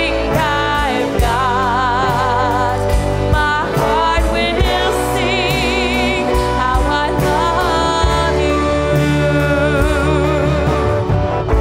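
Women's voices singing a slow contemporary worship song, with held notes and wide vibrato, over acoustic guitar and a steady low band accompaniment.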